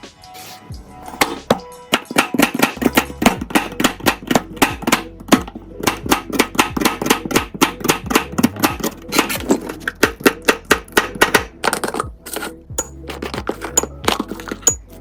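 Knife chopping food on a cutting board in quick, even strokes, several a second, over background music.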